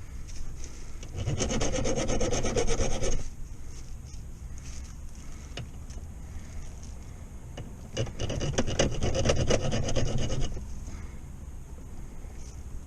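Hand file rasping in quick back-and-forth strokes, in two spells of about two seconds each: one beginning about a second in, the other about eight seconds in. The file is smoothing down the welded part of a gear shifter.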